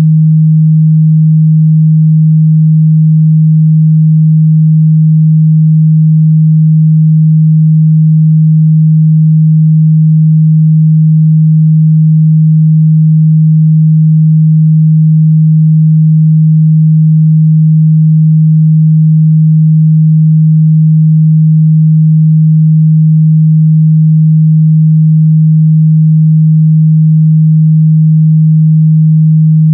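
A steady, loud 157 Hz pure sine-wave test tone, unbroken and unchanging in pitch, a low hum used for checking speaker and headphone response.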